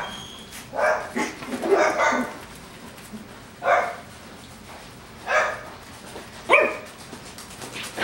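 A dog barking: several short, sharp barks at irregular intervals, a second or more apart.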